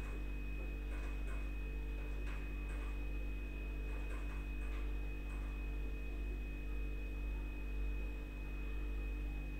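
Steady electrical hum with a thin constant high tone above it, and a few faint soft clicks.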